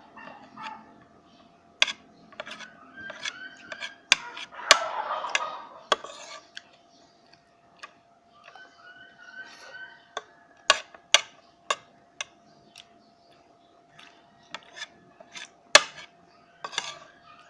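Cutlery clinking and scraping on a plate while eating, in scattered sharp taps.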